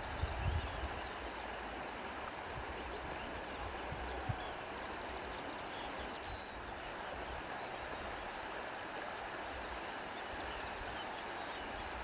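Wind blowing, a steady rushing noise, with low buffeting on the microphone about half a second in and a brief low bump around four seconds in.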